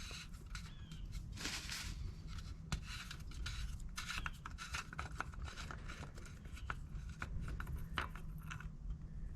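Scattered light clicks and scratchy scraping from the oil check plug (dipstick) being handled in the engine's filler hole while the oil level is checked, over a low steady hum.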